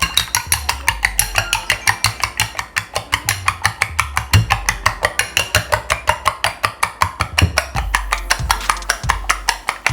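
An egg being beaten with a spoon in a bowl: quick, even clicking of the spoon against the bowl, about five or six strokes a second.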